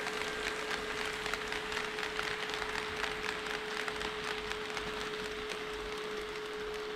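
HO scale model train running on the track: a dense patter of small wheel clicks over the rail joints, with a steady hum underneath.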